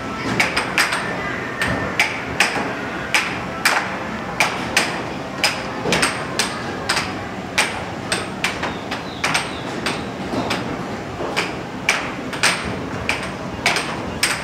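Air hockey puck struck back and forth by mallets on a Dynamo Fire Storm air hockey table, knocking off the rails in sharp, irregular clacks, about one or two a second, over a steady background hiss.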